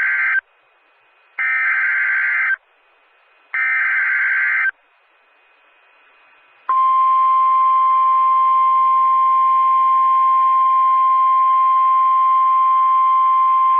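Emergency Alert System SAME header data bursts: three harsh, buzzy screeches about a second long, each followed by a second's pause. A few seconds later the EAS warning alarm tone starts, one loud steady pitch held without a break, announcing the flash flood warning that follows.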